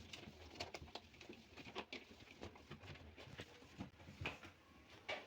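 Faint, irregular light clicks and rubbing from a fridge door being wiped down by hand with a damp cloth.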